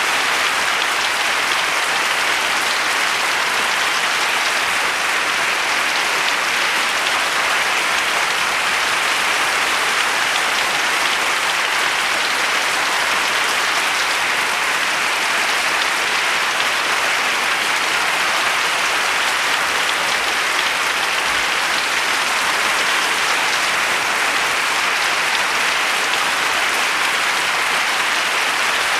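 Large audience applauding, a dense steady wash of many hands clapping with no let-up.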